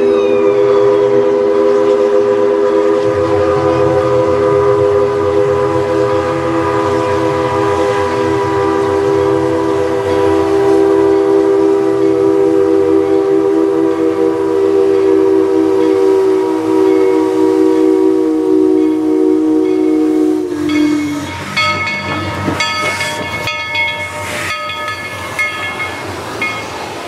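Steam locomotive's chime whistle blowing one long, steady chord for about twenty seconds, its pitch sagging just before it cuts off. Then the locomotive passes close by with hissing steam and higher ringing tones.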